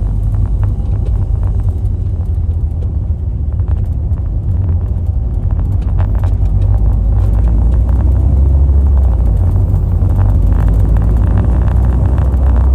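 Car engine running under way while driving, a heavy, steady low rumble that grows a little louder about halfway through.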